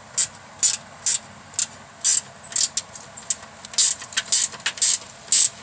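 Flex-head ratcheting wrench clicking in short repeated bursts, two or three a second, as it is swung back and forth to run in a bracket bolt on a car frame.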